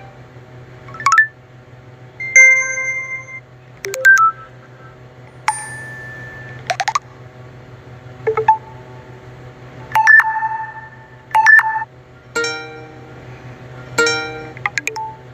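Ringtone playing on a TCL A1 (A501DL) phone: short electronic chime notes and beeps a second or two apart, with a quick rising swoop about seven seconds in. A faint steady low hum lies underneath.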